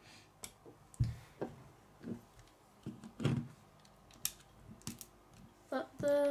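Plastic LEGO bricks and plates clicking and knocking as pieces are pressed onto a small build and handled against a wooden tabletop, in irregular separate clicks.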